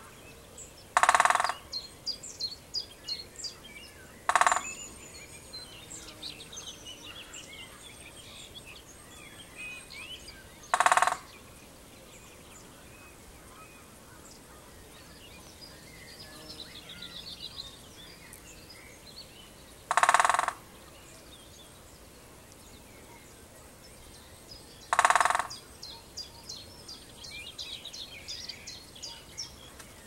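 Great spotted woodpecker drumming on oak timber: five short, loud rolls of very rapid blows, each under a second, spaced several seconds apart. This is territorial drumming. Other small birds sing and chirp faintly between the rolls.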